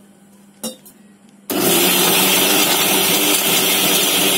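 A light click, then about a second and a half in a kitchen mixer grinder (mixie) switches on. Its motor runs steadily, wet-grinding pirandai chutney with water into a thick paste.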